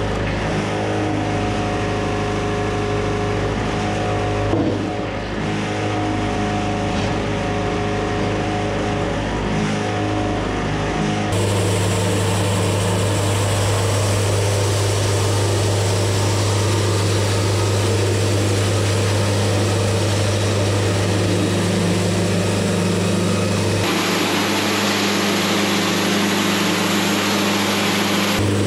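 Wood-Mizer LT70 Wide hydraulic sawmill running steadily, its band blade cutting lengthwise through a squared timber. The sound changes abruptly twice.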